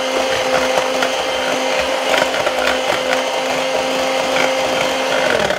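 Electric hand mixer running steadily, its beaters whisking a thick egg-and-flour pancake batter in a jug, with light ticks of the beaters against the jug. The motor cuts off near the end.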